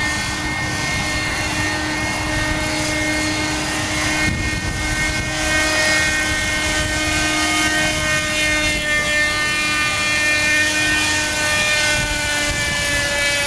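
Shuttle RC model helicopter's small glow-fuel engine running steadily in flight, a constant engine tone with rotor noise. There is wind rumble on the microphone.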